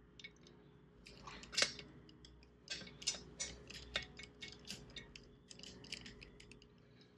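A hand tool tightens a cover bolt, making a run of short metal clicks at about four a second from about three seconds in, after a few separate clicks and clinks.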